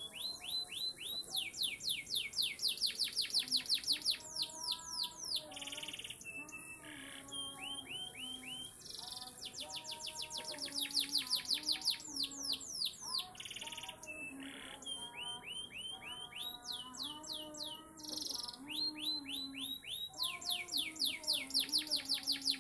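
Domestic canary singing a long, continuous song: fast trills of repeated high down-swept notes, strung into phrases that swell and pause every few seconds.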